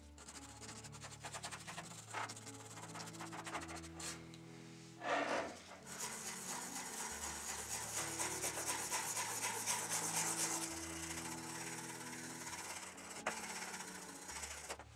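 Small brush scrubbing a model car body wet with paint remover, fast back-and-forth strokes of bristles on the loosened paint. The scrubbing grows busier and louder from about six seconds in, after a short louder rush at about five seconds.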